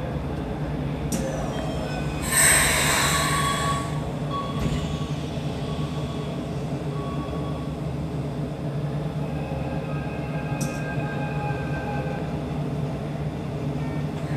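Keikyu New 1000 series train standing at the platform, heard from inside the cab: a steady low hum from the train's equipment, with a loud hiss of released air about two seconds in and faint thin tones later.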